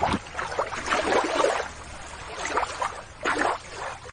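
Shallow water sloshing and splashing unevenly as a plastic toy crab is put back into it.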